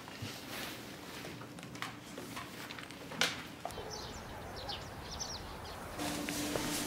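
Faint ambience with a few small clicks and knocks, then, about four seconds in, several short high bird chirps over quiet outdoor background. Near the end a steady low hum comes in.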